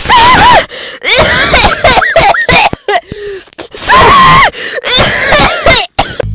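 A child's voice making loud, high-pitched squealing and wailing sounds: several arching shrieks with short breaks between them, not words.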